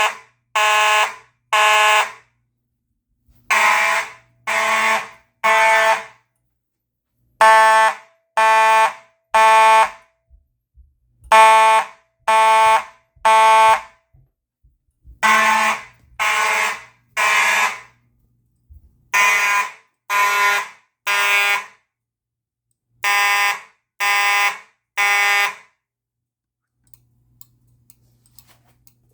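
Fire alarm horn sounding a temporal-three evacuation pattern: three buzzy half-second blasts a second apart, then a pause, the group repeating about every four seconds. It stops near the end, leaving a few faint clicks.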